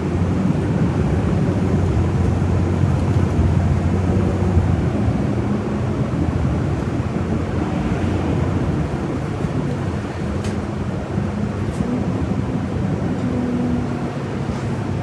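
City bus engine and road noise heard from inside the passenger cabin, running steadily as the bus drives, its low engine hum shifting in pitch a few times.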